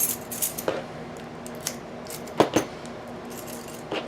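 Loose metal lock keys clinking and clicking against each other as they are sorted through one at a time: about half a dozen short, sharp clinks spread unevenly, with a close pair about two and a half seconds in.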